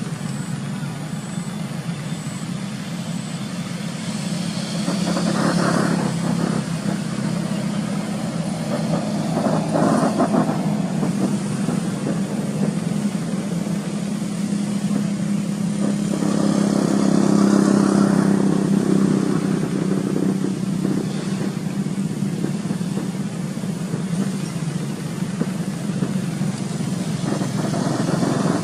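Motor vehicle engines running steadily, swelling louder a few times, about six, ten and eighteen seconds in.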